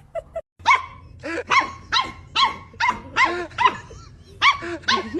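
A dog barking over and over in a steady run of short barks, about two a second, starting about half a second in.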